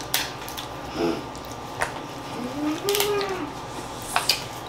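Crab and lobster shells cracking and snapping as they are picked apart by gloved hands, with eating mouth sounds. Midway there is a short hummed note that rises and falls.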